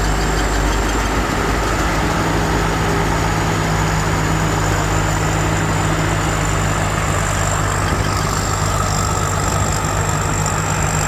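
Rice combine harvester's engine running steadily, with a faint high-pitched whine over the hum.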